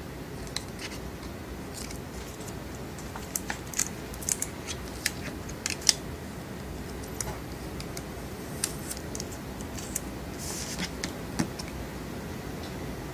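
Plastic screen-protector film and its backing liner being peeled and handled on a smartphone: scattered small clicks and crackles in irregular clusters over a steady low hum.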